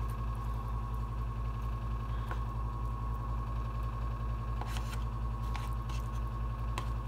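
A steady low hum with a faint thin whine above it, from an appliance or fan in the kitchen. A few faint light clicks come as vegetables are pushed off a plate.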